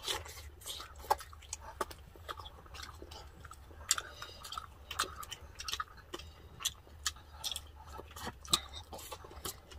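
Close-miked chewing of crispy deep-fried pork knuckle eaten by hand: irregular wet mouth clicks and crunches a few times a second, over a low steady hum.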